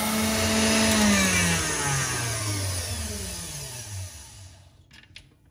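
KitchenAid Artisan stand mixer whisking eggs with its wire whisk at speed, then switched off about a second in. The motor's whine falls in pitch and runs down to a stop over about three seconds.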